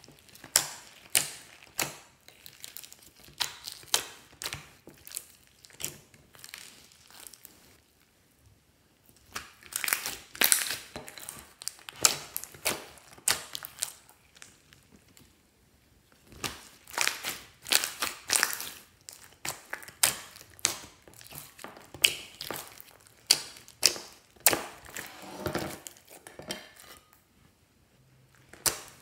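Hands squishing, folding and stretching a lump of white slime mixed with beads, glitter and sequins, giving runs of sticky clicks and pops. The clicks come in clusters with a few short pauses, about a third of the way in, halfway through and near the end.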